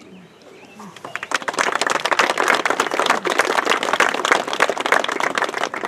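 Crowd applauding outdoors, the clapping starting about a second in, quickly filling out and thinning near the end.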